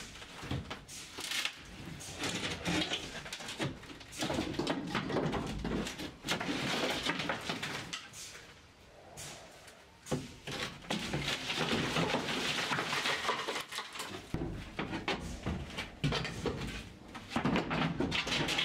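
Wooden interior panelling being pried off and handled in a small enclosed compartment: irregular creaking, scraping and knocking of wood, with a few sharp knocks.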